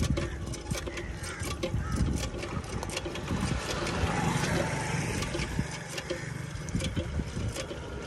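A motor vehicle's engine running close by, loudest in the middle, over a steady background hiss with scattered light clicks.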